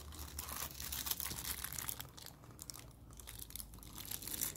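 Thin plastic bag crinkling as a wrapped microscope eyepiece is handled and turned in the hands: a run of small, irregular crackles, busiest in the first two seconds.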